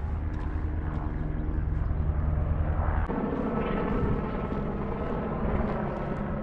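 A steady engine drone with a low hum of several pitches, which shifts upward in tone about three seconds in.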